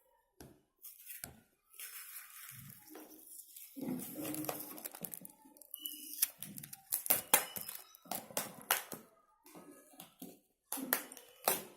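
Handling noise as a smartphone and its cardboard box are unpacked: irregular sharp clicks and taps with short stretches of rustling.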